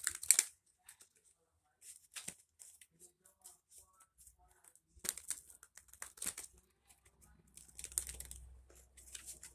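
Deck of divination cards being shuffled by hand, in several short spells of quick crisp flicks and rustles with pauses between.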